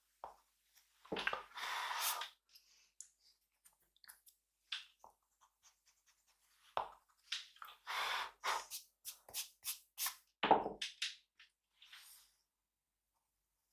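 Drawing on paper: a pen or pencil scratching in short, irregular strokes, with a few longer, louder sweeps about a second in, around eight seconds and around ten and a half seconds.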